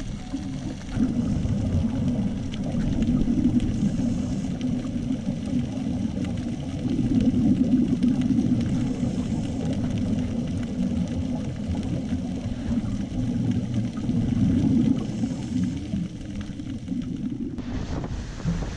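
Muffled underwater rumble picked up through a camera's waterproof housing, rising and falling unevenly. Near the end it gives way to wind and sea noise.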